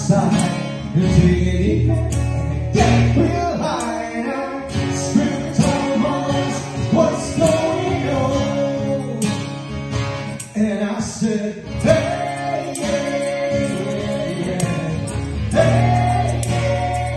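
Live acoustic duo: a woman and a man singing together over an acoustic guitar.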